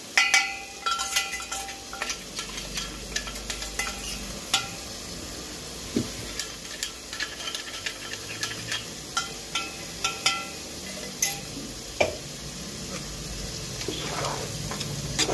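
Steel spoon scraping and tapping ground masala paste out of a stainless steel mixer-grinder jar into an aluminium cooking pot, with many short metallic clinks, some ringing briefly. A faint sizzle of the chicken cooking runs underneath, and the paste is stirred in near the end.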